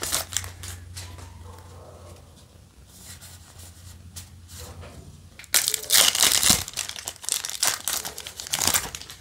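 Foil wrapper of a Yu-Gi-Oh! Synchro Storm booster pack crinkling and tearing as it is opened, briefly at the start and loudly again from about five and a half seconds in, with a quieter stretch in between.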